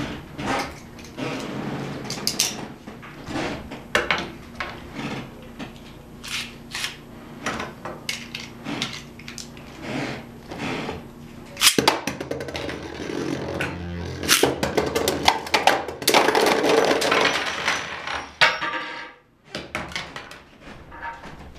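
Clicks and small knocks of Beyblade parts being handled. About halfway through comes a sharp snap as spinning tops go into a plastic Beyblade stadium, then several seconds of dense clattering and scraping as they spin and strike each other and the bowl. This dies away to quiet near the end.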